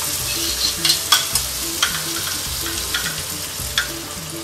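Peppers, onions and linguiça sausage sizzling in a hot pan, with a utensil scraping and tapping against the pan several times as the mixture is stirred.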